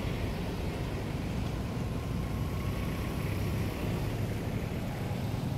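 Steady low rumble with a faint hum.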